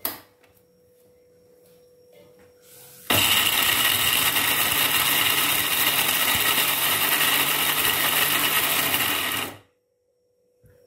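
Electric mixer grinder's motor running steadily, grinding whole almonds to powder in a small glass jar. It starts suddenly about three seconds in, after a click and a few quiet seconds, runs for about six seconds and then stops abruptly.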